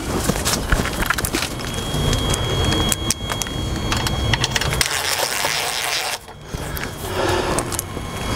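Cordless drill driving screws into a metal timer box: the motor whines for a few seconds, with clicks and rattles from handling the drill and box, over a steady low rumble.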